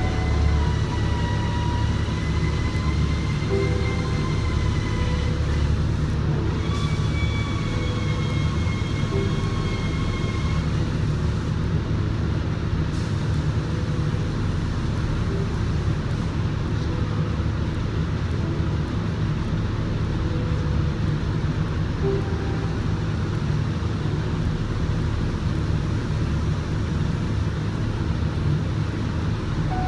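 Steady low machine drone of paint spray booth equipment running continuously.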